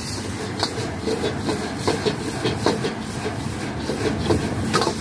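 Metal wok ladle clanking and scraping against a wok as rice noodles are stir-fried, about two strikes a second, over the steady rush of a high-powered gas wok burner.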